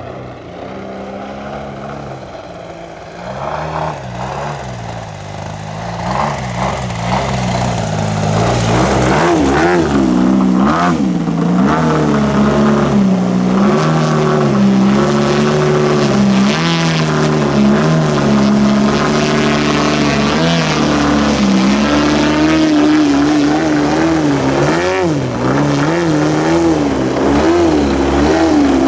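The engine and propeller of a 123-inch AJ Aircraft Laser giant-scale aerobatic RC plane in flight. It grows louder over the first third as the plane comes closer. From there on its pitch rises and falls repeatedly as the throttle is worked, ending with the plane hanging nose-up in a hover.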